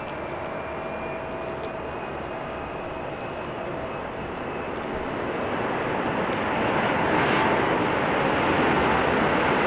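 Airbus A321neo airliner's jet engines running as it rolls along the runway after landing: a steady jet rumble with a faint whine, growing louder from about halfway through.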